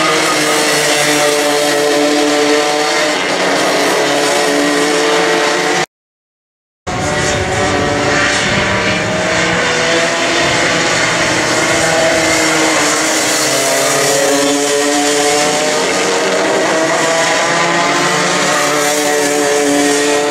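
Two-stroke racing kart engines buzzing hard, their pitch dropping and climbing again and again as the karts brake into and accelerate out of the corners. The sound cuts out completely for about a second about six seconds in.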